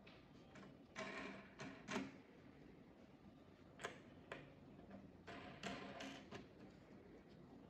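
Faint clicking and rustling from gloved hands handling the parts of a clear-plated capacitive deionization cell during assembly, in a few short bursts.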